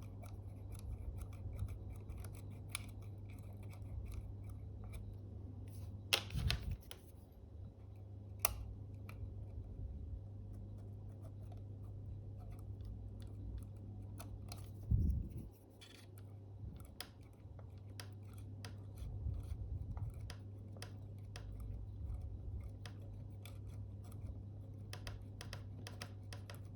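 Small hand tools clicking and scraping on a camera body, working sticky glue off a shutter flex cable, over a steady low electrical hum.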